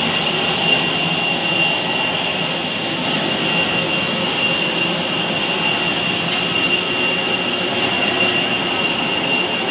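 Aircraft engine running steadily on the apron: a loud, even rush with a constant high whine.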